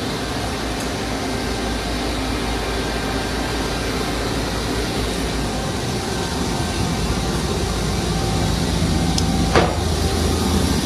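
Steady whooshing machinery noise of running shop equipment. A low hum grows stronger over the last few seconds, and there is a single sharp click near the end.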